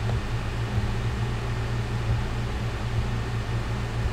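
Steady low hum with an even background hiss, unchanging throughout: room and equipment noise such as a fan or electrical hum.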